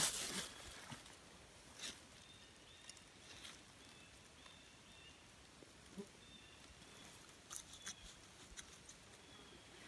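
Soft rustling and crackling of forest moss being torn into handfuls and stuffed by hand into the gaps between wall logs, chinking a log wall. A louder rustle comes right at the start, and a cluster of small clicks near the end.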